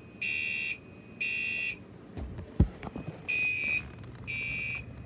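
Fire alarm horn beeping in the temporal-3 evacuation pattern: three half-second beeps about a second apart, a pause, then three more. A sharp knock sounds during the pause.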